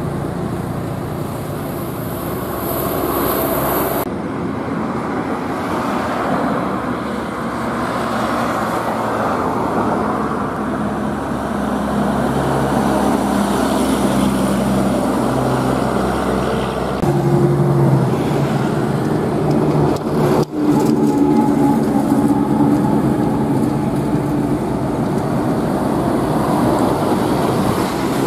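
Heavy diesel trucks driving past close by one after another, their engines and tyres on the road heard over steady traffic noise, with the engine pitch changing as each truck goes by. The sound breaks off briefly about two-thirds of the way through.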